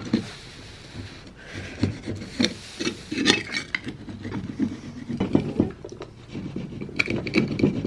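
A hand tool scraping and clicking irregularly against a 1910s metal door plate, working at old paint that is stubborn to come off.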